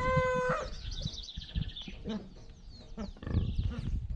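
A rooster's crow ending on a long held note about half a second in, followed by small birds chirping faintly.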